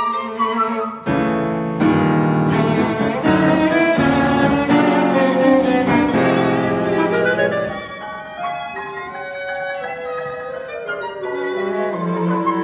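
Chamber ensemble of violin, cello and piano playing a very loud twelve-tone passage that starts about a second in. About eight seconds in it falls away to a soft passage of quiet strings and winds over rapid repeated piano notes.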